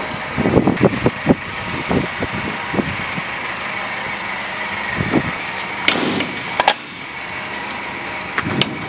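Thumps and metallic knocks of a GAZelle Next truck's cargo body being handled, with two sharp latch clicks about six seconds in, over a steady hum.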